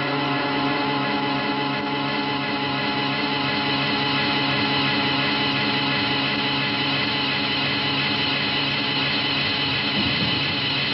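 Horror film score: a dense, dissonant chord held as a steady drone that does not change.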